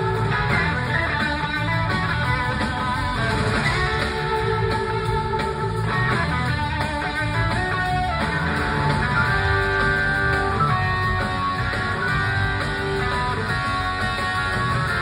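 Live rock band playing through the PA, with electric guitar lines over drums and bass, heard from the audience.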